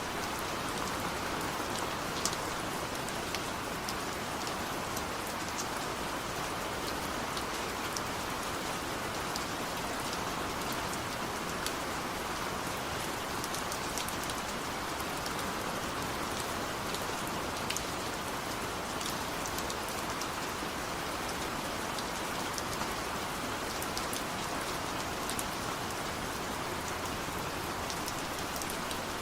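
Heavy rain falling steadily, a dense even hiss with individual drops ticking sharply through it.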